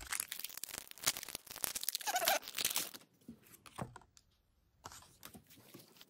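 Foil wrapper of a Pokémon trading-card booster pack being torn open and crinkled: a dense run of crackles for about three seconds. Then a few light clicks as the cards are handled.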